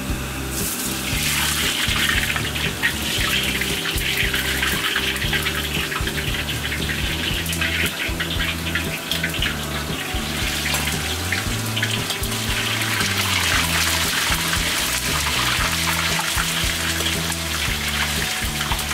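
Hot oil sizzling and crackling in a wok as sliced beef is fried in it, starting about a second in, with background music underneath.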